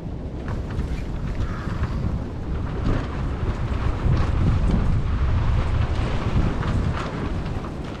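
Wind buffeting the microphone, a heavy fluctuating rumble, with a few faint knocks.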